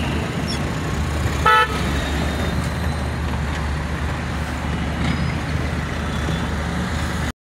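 Steady low rumble of engine and road noise heard from inside a car in city traffic, with one short car-horn honk about a second and a half in.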